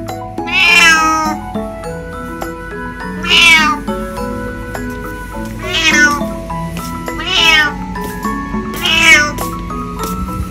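A 20-year-old calico cat meowing five times, each meow short and loud, one to three seconds apart, over background music.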